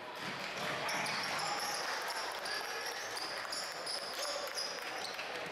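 Basketball game sounds in a gym: sneakers squeak in short high chirps on the hardwood as players run up the court, over a steady background of spectator chatter.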